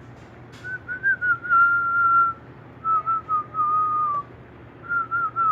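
A person whistling a tune in three short phrases, each a few quick turns settling onto a held note that drifts slightly down.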